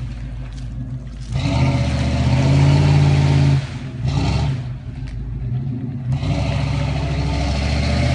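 Chevrolet Blazer's V8 engine revving in repeated bursts as the truck works through deep mud. About a second in the revs climb and hold for a couple of seconds, then drop back. There is a short surge around four seconds, and the revs pick up again about six seconds in.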